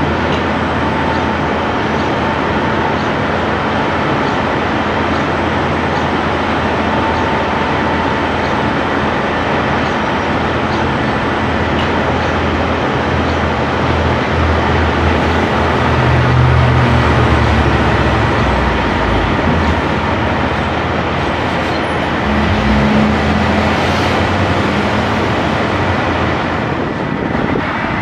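Heavy diesel engines of construction equipment and trucks running steadily, swelling louder for a few seconds about halfway through and again briefly later.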